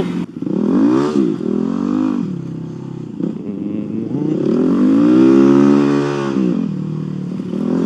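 Motorcycle engine revving up and down, with two short throttle rises about one and two seconds in, then a longer rise and fall about five to six seconds in.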